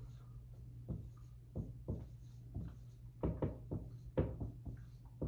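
Dry-erase marker writing on a whiteboard: a run of short taps and strokes as figures are written, coming closer together from about three seconds in, over a steady low hum.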